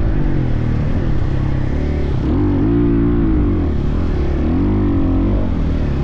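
Husqvarna dirt bike engine running while riding, its pitch rising and falling several times as the throttle is opened and closed.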